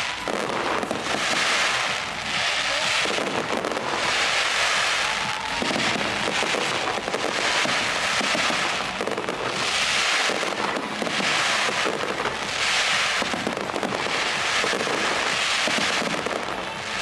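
Fireworks display going off in a dense, continuous run of bursts and crackle that swells and eases every second or two.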